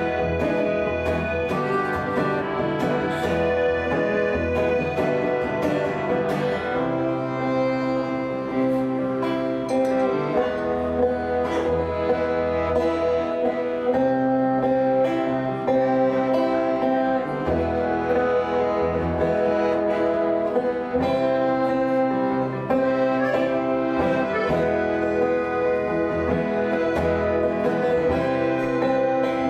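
Accordion and acoustic guitar playing together: the accordion holds sustained chords that change every couple of seconds over a pulsing bass, while the guitar is plucked and strummed alongside.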